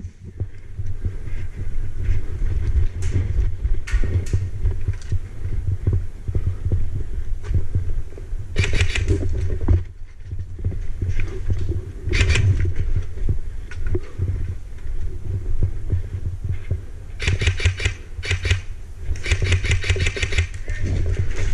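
Airsoft guns firing in rapid automatic bursts: one near the middle, a short one soon after, and several close together near the end. Under them runs a constant low rumble on the helmet camera's microphone.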